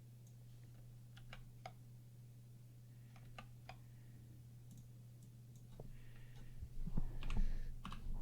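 Computer mouse clicks and keyboard key presses, a few scattered clicks at first, then a busier run of clicks with some low thumps near the end, over a steady low electrical hum.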